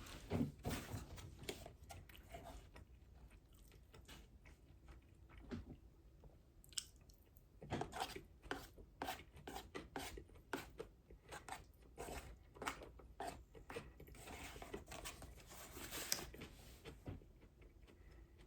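A person chewing and crunching food close to the microphone: many short crisp crunches, coming thicker in the second half.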